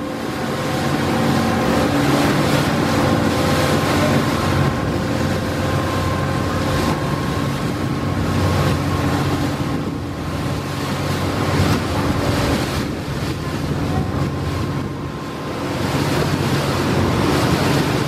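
A large river passenger launch's engine running with a steady hum, over the rush of water along the hull and wind buffeting the microphone.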